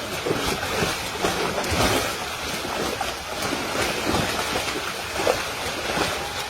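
Water splashing and sloshing, with many small uneven splashes.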